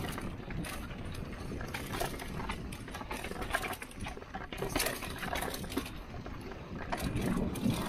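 Mountain bike rolling fast down a dry dirt trail: tyres crunching over dirt and rock while the bike rattles and clatters over the bumps, with steady road noise underneath. The clatter comes thick and irregular, heaviest over a rough sandstone section about halfway through.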